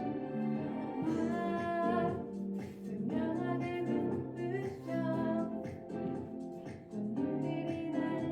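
Song music with instrumental backing and a melodic lead line moving up and down in pitch.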